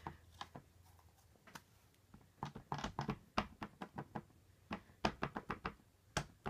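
An ink pad is dabbed repeatedly onto clear polymer stamps to ink them: a few scattered clicks, then fast runs of light taps starting about two and a half seconds in and again in the last second and a half.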